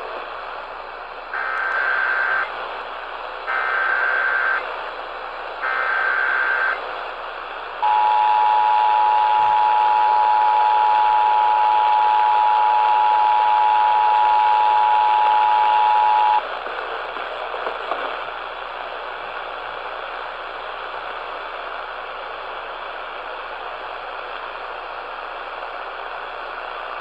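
Emergency Alert System activation for a tornado warning, heard over AM radio. It starts with three short data bursts of about a second each, then the two-tone attention signal holds for about eight seconds. After that comes about ten seconds of dead air with steady radio hiss.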